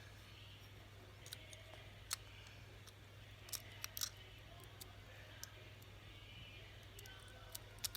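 Faint, scattered clicks and scrapes of a lock pick working the wafers of a Corbin wafer padlock held under a tension wrench, with sharper ticks about two seconds in and in a cluster around three and a half to four seconds.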